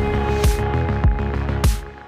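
Electronic background music with a steady beat, dropping out briefly near the end.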